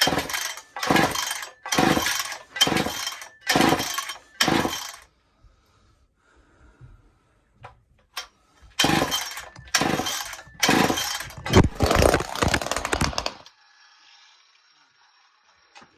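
Ported Poulan 245a two-stroke chainsaw being pull-started: the recoil starter is yanked again and again, about a pull and a half a second, in two runs of about half a dozen pulls with a pause of a few seconds between. The saw is not firing; the owner hopes it only got drowned by rain.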